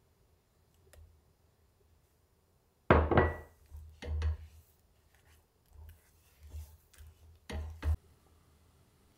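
Silicone spatula stirring and folding thick mung bean paste with butter and sugar in a pot, with several sharp knocks and thuds of utensils on the pot. The loudest knock comes about three seconds in, with others a second later and near the end.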